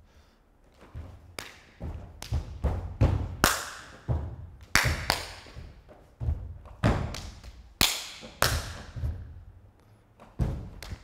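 A dancer's feet stamping and landing from jumps on a studio floor in a Ukrainian folk dance: irregular heavy thuds, one to three a second, each with a short echo of the room. They start about a second in.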